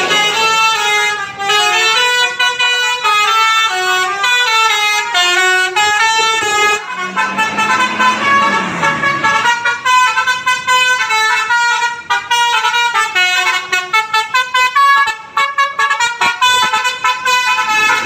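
Telolet horns on Indonesian tour buses playing tunes: several horn tones step up and down through a melody, note after note. Near the end the notes come as rapid short toots.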